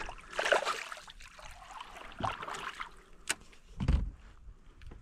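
Water splashing and sloshing at a kayak's side as a small just-caught bass thrashes at the surface and is let go by hand, in several irregular splashes, with a dull knock on the kayak about four seconds in.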